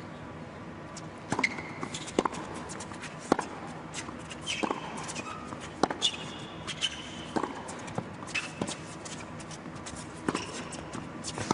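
Tennis rally on an indoor hard court: a serve about a second in, then a racket striking the ball as sharp pops about once a second, with short high squeaks of players' shoes on the court between the strokes.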